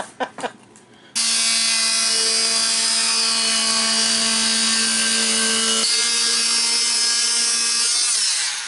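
Oscillating multi-tool switched on about a second in, running steadily at full speed as its blade cuts at a stuck plastic drain fitting in a sink bottom. It drops a little in pitch partway through and winds down near the end. A few light knocks come just before it starts.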